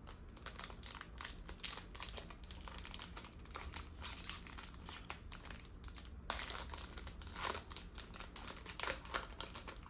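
A Panini Euro 2020 Select trading-card pack wrapper being torn open and crinkled in the hands: a dense, irregular run of crackles, busiest around the middle.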